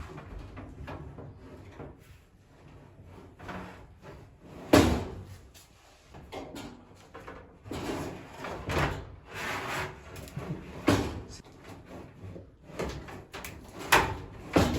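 Irregular clunks, knocks and scraping of parts being handled while a clothes dryer is taken apart, with the loudest knock about five seconds in.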